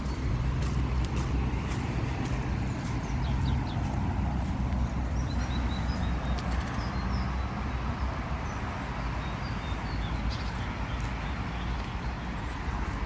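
Steady low engine rumble of a vehicle. Small birds chirp briefly over it from about five seconds in.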